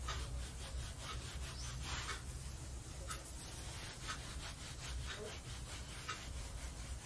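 Makeup brush sweeping powder blush over the cheek, a faint soft rubbing in a quick series of short strokes.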